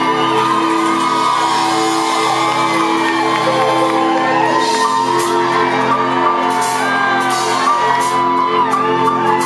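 Live band playing an instrumental passage: electric guitar, bass and drums over held notes, with shouts and whoops from the crowd. Cymbal hits come in about halfway through.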